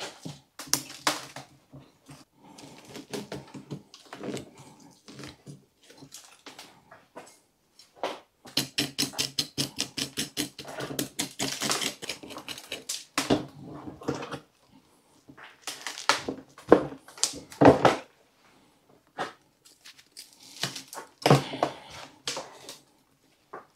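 Root rake scratching and tugging through a European hornbeam bonsai's root ball, teasing out the old roots and soil. It comes in bursts of quick strokes, about five a second in the longest run.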